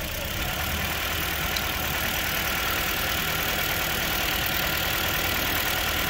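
Toyota Corolla's four-cylinder engine idling with a misfire, running on three of four cylinders with one dead cylinder. The coils are being unplugged one at a time for a cylinder drop test.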